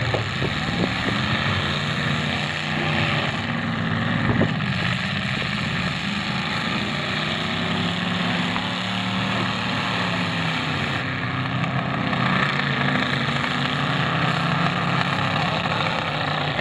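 Several demolition-derby car engines running and revving unevenly as the cars manoeuvre in the mud, with a sudden knock about four seconds in.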